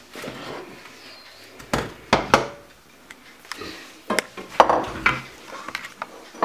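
Dishes and utensils clinking and knocking on a kitchen counter: a white ceramic plate set down and spoons and steel bowls handled, in several separate sharp clinks.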